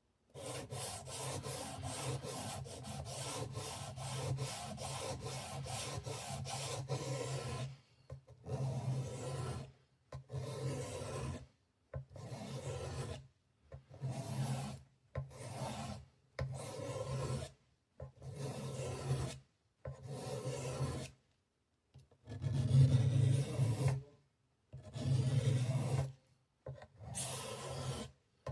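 Abrasive rubbing strokes as the Swiss Army knife is worked over by hand: a quick run of back-and-forth strokes for about eight seconds, then about a dozen separate bursts of a second or so with silence between.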